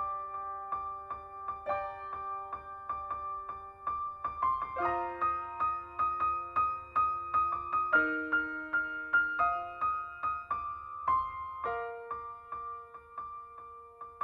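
Background music: gentle piano-like keyboard playing quick repeated notes over chords that change every second or two.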